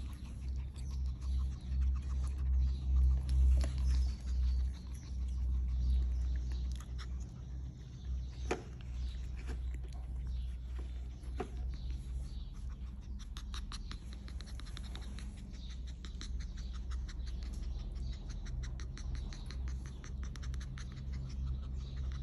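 A small long-haired puppy pawing, scratching and licking up close to the phone: scattered clicks and scratchy noises, with a dense run of quick clicks about two-thirds of the way through, over a steady low hum.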